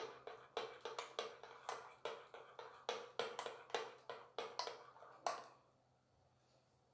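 Metal spoon stirring batter in a glass bowl, clinking against the bowl about three times a second; the clinking stops about five seconds in.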